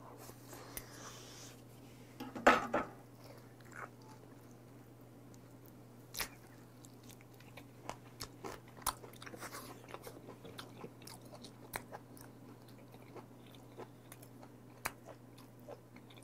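Close-miked chewing of raw beef shank, with scattered short smacking clicks and a louder burst about two and a half seconds in.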